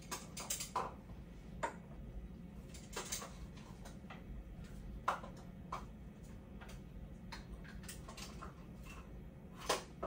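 Irregular light clicks and taps of small items being handled at a counter, the sharpest near the end, over a faint steady low hum.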